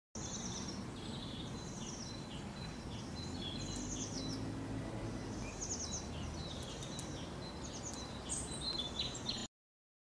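Small garden songbirds chirping and calling, many short high chirps and trills in quick succession, over a low background rumble. The sound cuts off suddenly near the end.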